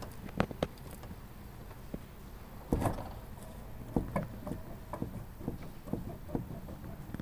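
A car's suspension knocking and clicking over a steady low rumble: two sharp knocks near the start, a louder thud about three seconds in, then a run of lighter clicks. This is the suspension noise the customer complained of.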